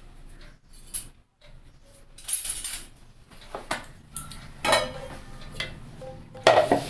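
Stainless-steel kitchenware knocking and clinking as a mixer-grinder jar and steel bowl are handled on a table: several separate knocks with a short metallic ring, and a brief scrape about two seconds in.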